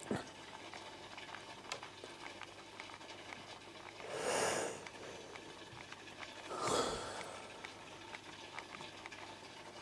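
Aquarium filter and air bubbles running steadily, with small bubbling ticks. Two louder whooshes, each about a second long, come about four and about seven seconds in.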